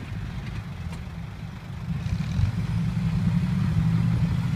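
Six-wheel dump truck's diesel engine running steadily. It grows louder about two seconds in as the hydraulic hoist starts tipping the loaded bed.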